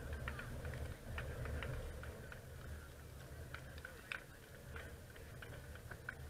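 Outdoor ambience: a fluctuating low rumble of wind on the microphone, with scattered faint ticks and a sharper tap about four seconds in.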